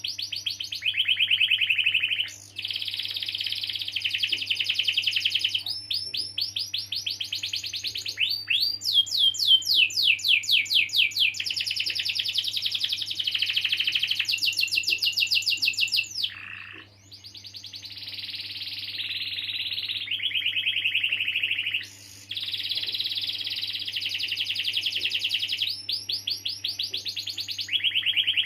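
Domestic canary singing a long, nearly unbroken song of rapid rolling trills and chirps, with a brief break about halfway through and another two-thirds of the way through. A faint steady low hum runs beneath.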